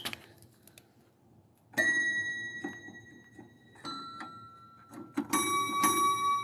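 Electronic piano sounding by itself: a click, then a single held, chime-like note about two seconds in, another about four seconds in, and several notes sounding together from about five seconds on.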